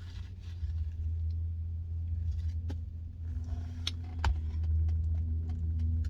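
Car idling, heard as a steady low hum inside the cabin, with a few light clicks and taps over it.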